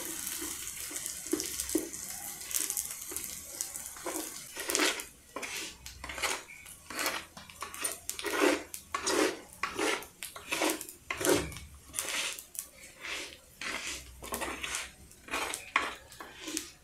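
Wooden spoon stirring rice as it fries in oil in a clay cazuela, scraping the grains against the pot. A soft hiss at first, then about four seconds in a steady run of scrapes, roughly two a second.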